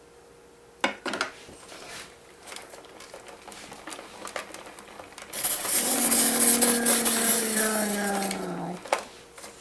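Hand-cranked apple peeler-corer being turned, with a grinding, whirring noise and a low drone for about three seconds as the blade pares the peel off an apple and the corer cuts through it. A few clicks about a second in, as the apple is pushed onto the prongs.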